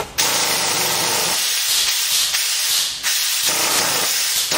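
Compressed-air blow gun blasting metal chips off a milling-machine vise and workpiece: a loud, steady hiss with a brief break about three seconds in.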